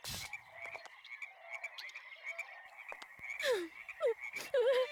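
Cartoon frogs croaking in a steady chirping chorus, with a thump at the start. Near the end come a few falling, crying sobs.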